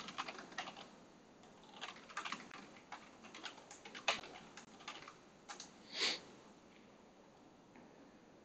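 Computer keyboard typing in short bursts of key clicks, stopping about six seconds in with a brief hissy sound.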